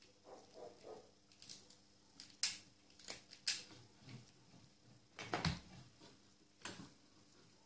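Scattered sharp clicks and snaps of yellow-handled wire strippers working on wire ends, with a louder knock and low thud about five and a half seconds in as the tool is laid down on the battery box.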